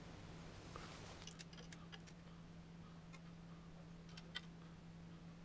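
Faint, irregular small metal clicks of a hand tool working the oil pickup tube's bolts as the tube is fitted to the engine block, starting about a second in, over a steady low hum.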